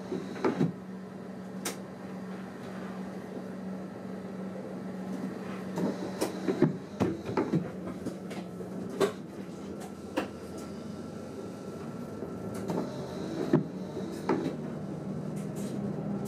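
Inside a moving train's driver's cab: a steady low running hum, with irregular clicks and knocks from the cab every second or two.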